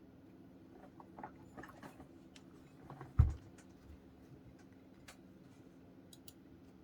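A few scattered, irregular keystrokes and handling noises on an mStone Groove F mechanical keyboard with fully lubricated Clarion brown 35g switches, with one loud low thump about three seconds in.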